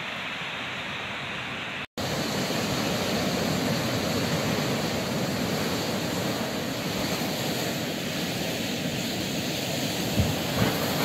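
Ocean surf: a steady rush of waves breaking and washing in over a rocky shoreline. It becomes louder after a sudden cut about two seconds in. Two brief low thumps come near the end.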